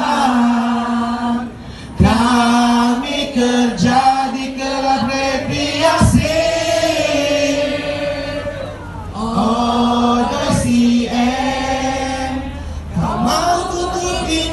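A crowd singing together in unison, in held phrases of a few seconds each with short breaks between them.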